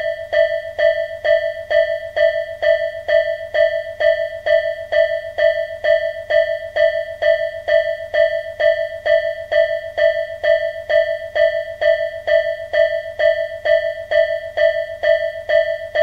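Japanese level-crossing warning bell: one electronic ding at a single pitch, repeating rapidly and evenly, the signal that a train is approaching.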